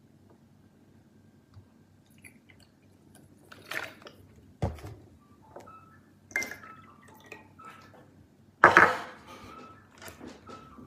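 Glassware and liquid handled on a table: liquid poured into drinking glasses, with a sharp knock of a glass set down about halfway and a loud short rush of pouring near the end.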